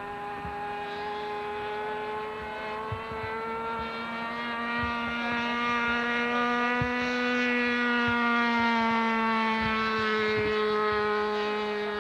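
Rossi .60 two-stroke glow engine of a model F-18 pusher-prop plane in flight, a steady high-pitched buzzing drone. It rises slightly in pitch and grows louder around the middle, then eases back down near the end.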